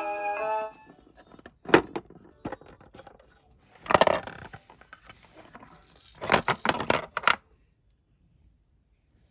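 Small hard toy pieces clicking and rattling as they are handled, in three clusters: about two seconds in, around four seconds in, and a longer run near the end. A synthesized children's tune cuts off within the first second.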